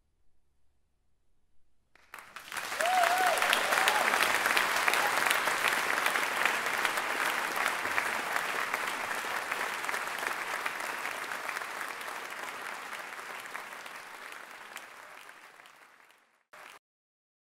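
Audience in a concert hall applauding at the end of a piece. The applause starts suddenly about two seconds in, a short wavering call rises above it just after it begins, and it slowly dies down before cutting off abruptly near the end.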